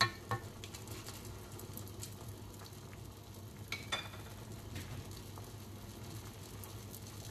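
Pot of kumquat, lemon basil and rock-sugar cough syrup heating on the stove with a steady hiss of simmering liquid. A wooden spoon knocks against the pot at the start, and a light metallic clink comes about four seconds in.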